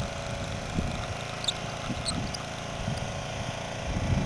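Pressure washer running with a steady hum, with wind buffeting the microphone.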